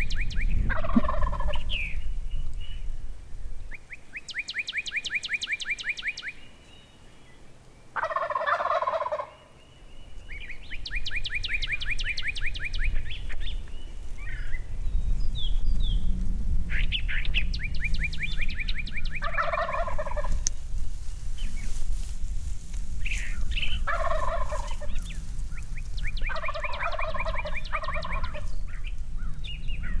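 A Rio Grande wild turkey gobbling from its roost at first light, about five gobbles several seconds apart. Between the gobbles a rapid, high trill repeats every few seconds.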